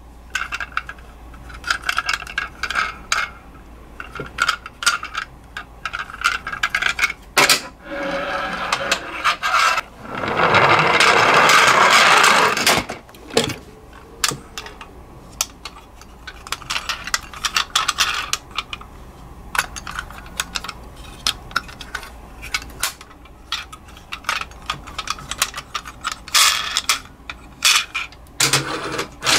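Toy ambulances clicking and clattering as they are picked up from a cardboard box and handled, with scrapes against the cardboard. A louder steady rushing noise lasts about three seconds, starting about ten seconds in.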